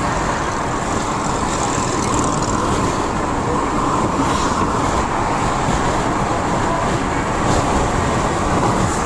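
Steady road and wind noise inside a moving Volkswagen car's cabin.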